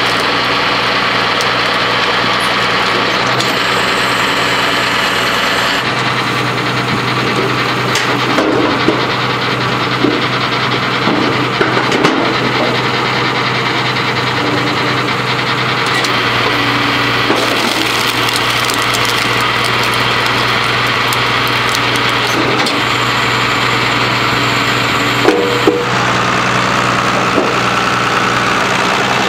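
Case IH 956XL tractor's diesel engine running steadily, driving a Binderberger Gigant 30 Z log splitter. A few sharp cracks and knocks of logs being split and wood striking the splitter come through in the middle and again near the end.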